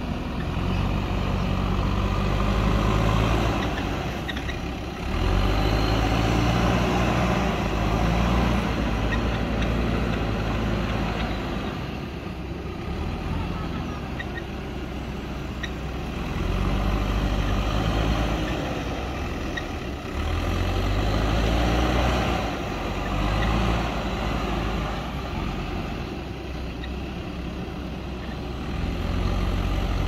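JCB backhoe loader's diesel engine running under load, revving up and easing off again and again as the front bucket pushes and levels loose soil.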